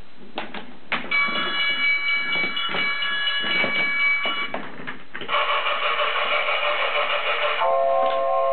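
Electronic train sound effects from a battery-powered toy on a wooden railway set. After a few wooden clacks, a steady chord of high tones is held for about three and a half seconds, then a hiss with tones under it, then a lower steady chord begins near the end.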